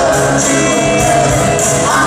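Live country-pop duet: a full band playing under a held sung note, with a tambourine jingling on the beat.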